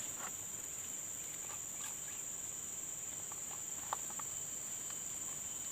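Steady, high-pitched chorus of insects, with a few faint clicks, one sharper about four seconds in.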